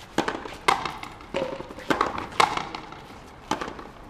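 Frontenis rally: rackets striking the small rubber ball and the ball smacking the front wall, sharp echoing cracks about six times in four seconds.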